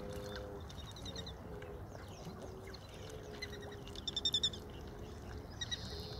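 Ornamental ducks and geese calling: drawn-out low calls throughout, with short runs of high rapid chirps, the loudest a quick series of about six about four seconds in.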